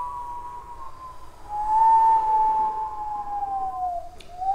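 A person's pure, whistle-like tone. One held note fades out within the first second. A new note starts about a second and a half in, slides slowly down in pitch, then turns back up near the end.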